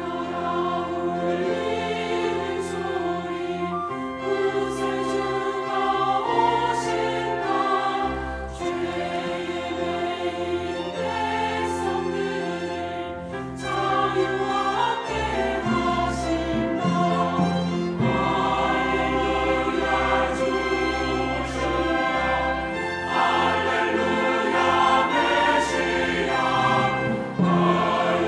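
Church choir singing a Korean sacred anthem in parts, with strings (violins, cello and double bass) accompanying.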